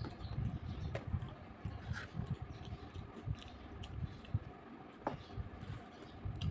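Close-miked eating sounds: a man chewing food in soft, uneven pulses, with a few sharp clicks as his fingers work the food on a plate.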